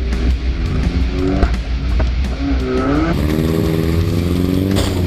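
Compact demolition-derby car's four-cylinder engine revving, heard from inside the cabin, its pitch rising and falling and then holding steady, with a few sharp knocks.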